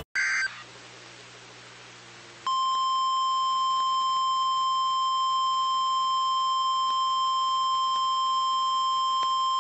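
A short electronic data burst, then a couple of seconds of faint hiss, then the NOAA Weather Radio 1050 Hz warning alarm tone comes on and holds steady. This single steady tone is the attention signal that comes before a weather warning broadcast.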